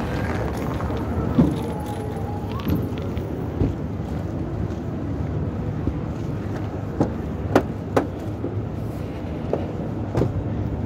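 City street traffic noise, a steady rumble, with about eight sharp clicks and knocks scattered through it.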